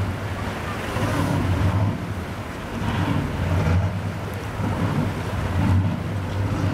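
Racing powerboat's engines idling with a low, steady rumble that swells and eases every second or two, over wind on the microphone and lapping waves.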